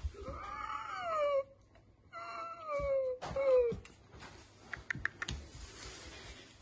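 A pet animal gives three drawn-out cries, each falling in pitch, the last one short, followed by a few light clicks.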